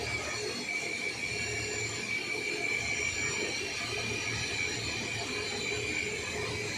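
Automatic keyway milling machine running with a steady high whine and a low, slowly pulsing hum.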